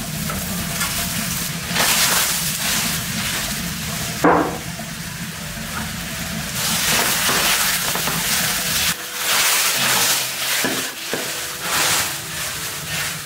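Food sizzling in a hot pan, the hiss rising and falling in swells. There is one brief, sharp, louder sound about four seconds in.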